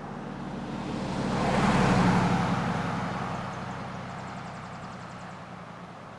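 Pickup truck driving close past: engine hum and tyre noise grow to a peak about two seconds in, then fade away gradually.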